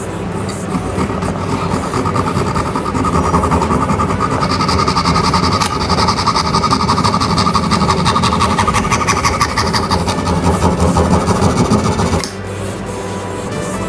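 Fine wire saw sawing through a thin plastic syringe barrel, a steady, rapid scraping that stops suddenly about twelve seconds in as the cut goes through.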